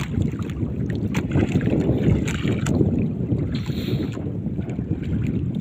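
Wind rumbling on the microphone of a handheld phone in a small boat at sea: a steady low noise with a few faint knocks.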